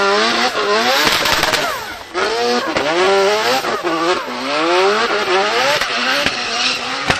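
Mazda 26B four-rotor twin-turbo rotary engine revving up and down over and over while the rear tyres spin in a smoky donut. The revs drop sharply about two seconds in, then climb and fall several times, with a sharp crack near the end.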